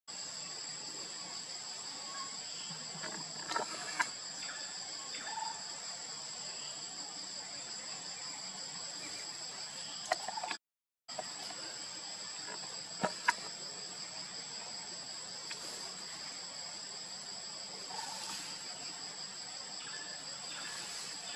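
Steady, high-pitched insect drone with two even pitches holding throughout, a few faint sharp clicks and knocks, and a brief dropout about halfway.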